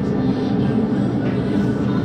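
Background radio music playing over a steady forge roar, with no hammer strikes.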